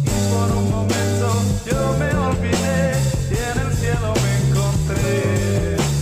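Rock music: a full band with bass, guitar and a singing voice.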